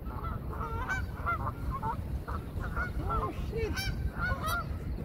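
A flock of Canada geese honking, many short calls overlapping throughout, over a steady low rumble.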